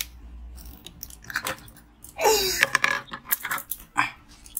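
Crunching and crackling of shaved ice in a string of short, irregular strokes, with a brief voice-like sound about two seconds in.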